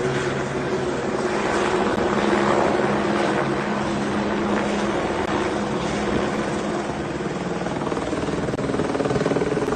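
Firefighting helicopter's rotor and engine running: a steady, loud drone with a low hum underneath.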